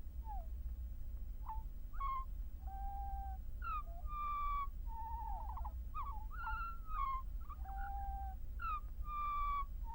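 A string of a dozen or so short bird-like hoots and whistles, some held on one note and some sliding quickly downward, over a steady low hum.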